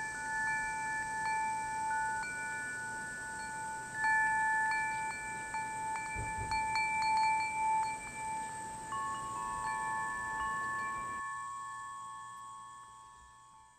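Chimes ringing: several clear bell-like tones at different pitches, struck at irregular moments and left to ring on, overlapping. They fade out over the last few seconds.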